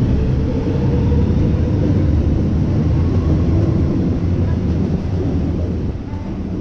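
Melbourne Metro suburban electric train running past close by along the platform: a steady, loud low rumble that begins to fade near the end as the last carriage goes by.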